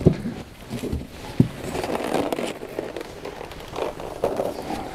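Handling noise as takeaway food is unpacked from an insulated delivery box: crackling and rustling of plastic containers and clothing, with scattered clicks and one sharp click about a second and a half in.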